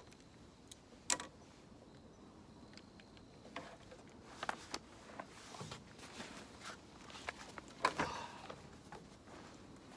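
Desk items being handled and packed on a wooden table: scattered clicks, knocks and rustling, with a sharp click about a second in. A louder rustle and knock near the end as a fabric bag is pulled out.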